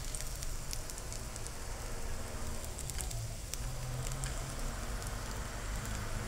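Tempeh frying in hot oil in a small pan over high heat: a steady sizzle with many scattered pops and crackles of spitting oil.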